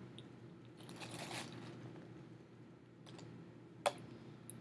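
Big ice chunks handled in a plastic zip-top bag and added to foam cups: faint crunching and rustling, with a few small clicks and one sharp click just before the end.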